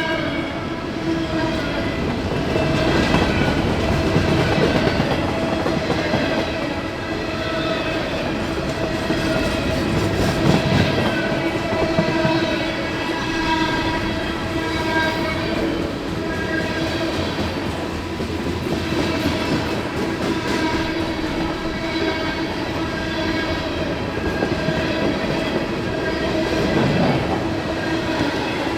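Freight cars of a long CSX train rolling past over a grade crossing: wheels clattering over the rails, with a steady whining tone held under the noise throughout.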